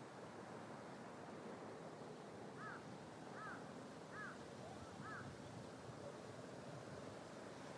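Faint steady outdoor background noise, a low hiss and rumble, with a bird calling four times in the middle of it: short arching notes a little under a second apart.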